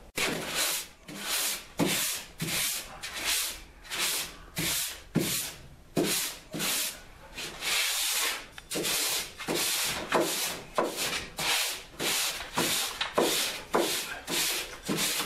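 Hand sanding over cured finishing glaze and body filler on a car's lower body panel with a small sanding pad: rhythmic back-and-forth rasping strokes, a little under two a second, cleaning up the filler ahead of sanding primer.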